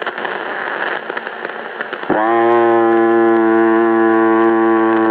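CB radio receiver hissing with static, then about two seconds in a steady buzzing hum with many even overtones comes on suddenly and holds.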